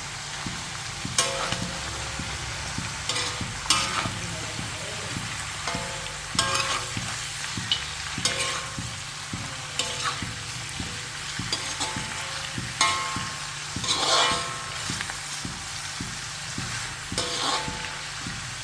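Chicken and chopped radish frying in a pan with a steady sizzle, stirred with a spoon that scrapes the pan about every two seconds.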